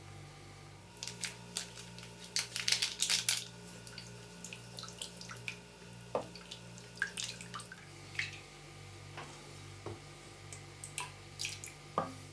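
Kitchen preparation sounds: scattered clinks and taps of dishes and utensils, busiest in the first few seconds, over a steady low hum.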